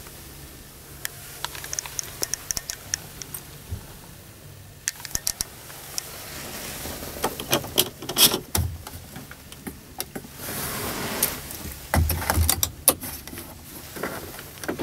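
Sharp plastic clicks and small knocks from the truck cab's controls being handled, the steering-column stalk flicked and door-panel switches worked, some clicks in quick runs. No engine is running.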